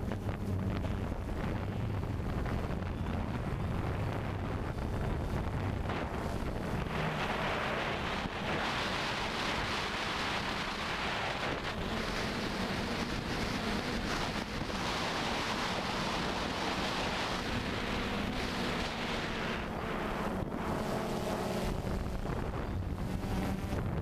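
Motors and propellers of a DJI Phantom 2 quadcopter, heard through the GoPro mounted on it: a steady hum mixed with wind noise on the microphone. The wind rush grows louder and hissier from about a quarter of the way in until near the end.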